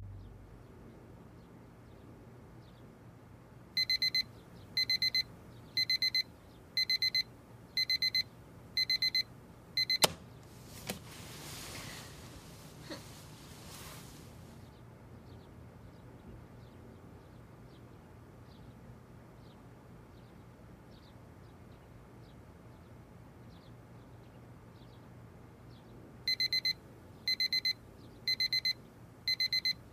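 Electronic alarm beeping in short bursts of rapid high beeps, about one burst a second. It stops after six bursts with a sharp click and a few seconds of rustling, then starts beeping again near the end.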